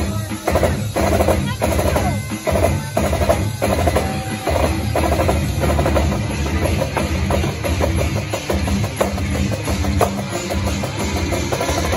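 A marching drum corps playing a rhythmic cadence on snare drums, with music.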